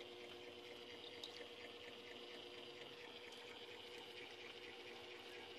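Near silence: a faint steady hiss of room tone with a low electrical hum and a few faint soft clicks.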